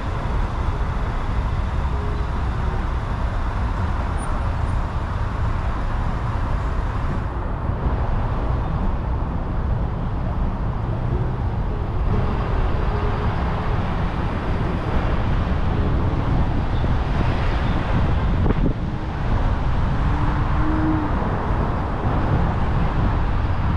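Car being driven: a steady low rumble of engine and tyre noise.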